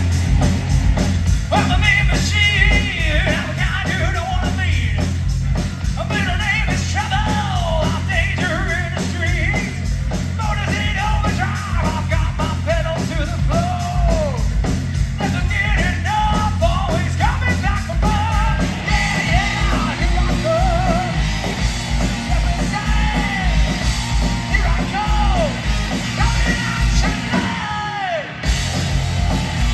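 Live rock band playing loudly: drums, bass and electric guitar, with a lead melody bending in pitch over the band.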